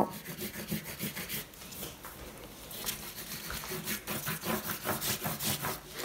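Oil pastel scraped back and forth across drawing paper in quick hatching strokes, a dry scratchy rubbing, the strokes coming faster, about three or four a second, in the second half.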